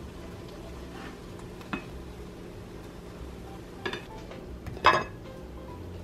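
A spatula, frying pan and plate clinking as omelette is served onto the plate: a light click, then a pair of clinks about four seconds in and the loudest clink about a second later, over a faint steady hum.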